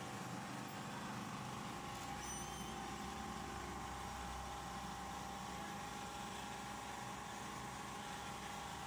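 Office photocopier running steadily, a constant mechanical hum with a steady high tone. A deeper hum joins for a few seconds about two seconds in.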